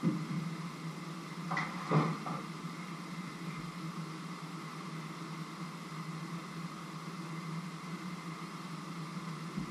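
Steady mechanical hum, like a small motor or fan running, with a few clicks and a single louder knock about two seconds in.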